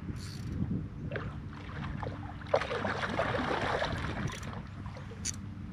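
A steady low engine hum, with a rush of noise that starts with a sharp click about two and a half seconds in and lasts over a second.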